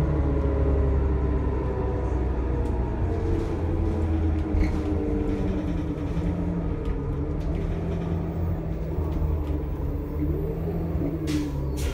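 Cummins C-Gas Plus natural-gas engine and Allison B400R transmission of a New Flyer C40LFR transit bus running, heard inside the passenger cabin as a steady low rumble. A few light knocks or rattles come through, the clearest near the end.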